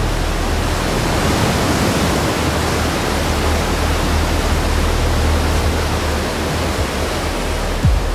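Steady, loud rushing noise of storm-force wind and surf, with a low hum underneath.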